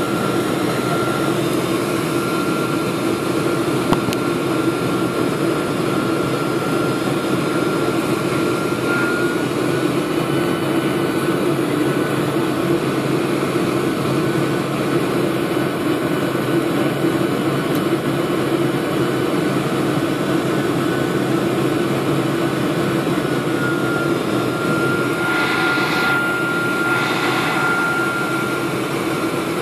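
Cabin noise of a KLM Boeing 747-400 on low approach: steady jet-engine and airflow noise, with a thin high whine that fades out about a third of the way in and comes back near the end. Near the end there are two short bursts of noise about a second and a half apart.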